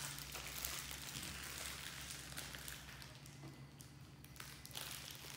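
Baby monkey eating noodles: faint, scattered soft clicks and rustles over a low steady hum.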